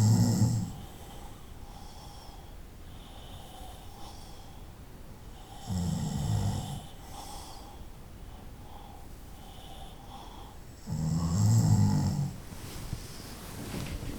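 A sleeping person snoring: three low snores, one about every five to six seconds, each lasting about a second, with softer breaths between them.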